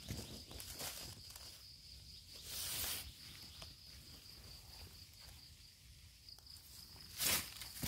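Dry leaf litter rustling as hands and a knife disturb it while a mushroom is picked, with a louder rustle about three seconds in and another near the end. A steady high insect trill runs underneath.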